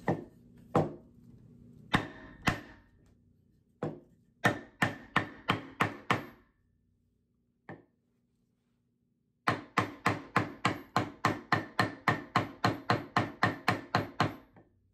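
Claw hammer striking a scrap 2x4 wood block laid on a wooden desk, driving a stuck desk grommet down into its hole. A few separate blows, then a run of about six quick strikes, a single blow, and finally a steady volley of about four strikes a second for some five seconds.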